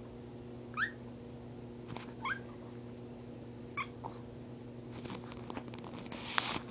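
A small dog giving three short, high-pitched whining squeaks about a second and a half apart, each sliding in pitch. Near the end come scratchy rustling and a louder scrape close to the microphone as the dog moves against it.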